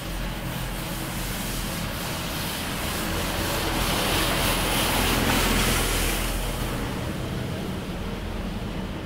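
Street traffic with a steady low hum, as a vehicle passes close by: its noise swells to a peak about five seconds in, then fades.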